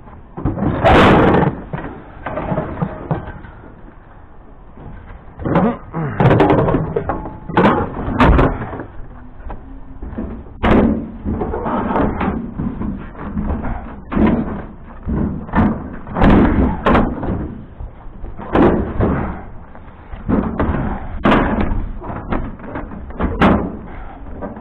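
Curbside scrap being handled and loaded: a run of bangs, knocks and clatter as items are dropped and tossed, one every second or so, with short ringing after some of them.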